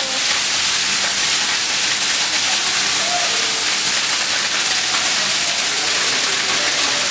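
A steady, loud rushing hiss that holds an even level throughout, with no knocks or calls standing out from it.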